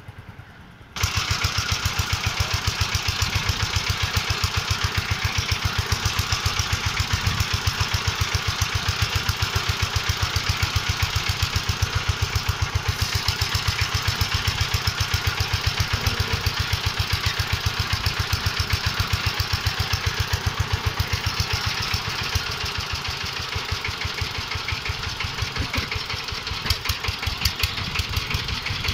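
A vehicle engine idling close by, a rapid, even low beat under a steady hiss, starting abruptly about a second in and running on unchanged.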